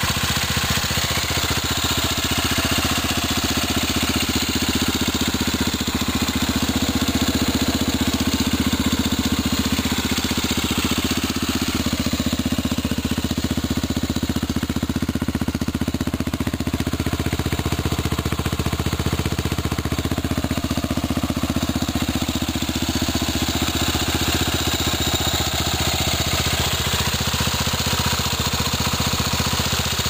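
Yamaha Warrior 350 ATV's 348 cc four-stroke single-cylinder engine idling steadily through an FMF Megamax 2 spark arrestor exhaust.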